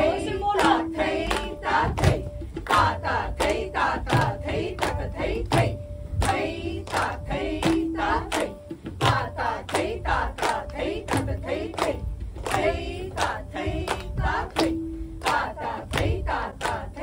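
A group of Kathak dancers clapping in unison to keep the beats of jhaptaal, in an even run of quick claps. Several voices chant the rhythm's bols together between the claps.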